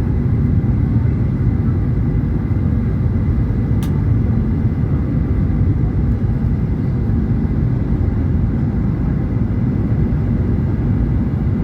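Steady aircraft engine noise: a constant low rumble with a faint steady whine above it, and one brief click about four seconds in.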